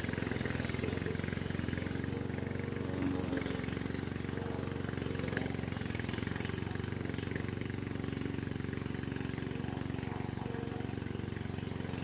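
Engine of a Vigorun VTC55090 remote-control mower running steadily under load as the mower cuts through long grass.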